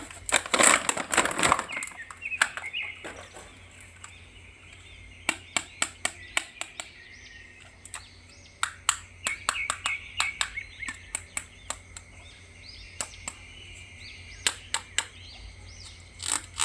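Sharp plastic clicks and taps in irregular runs from handling toy action figures, with a rustling crinkle early on. Birds chirp faintly in the background.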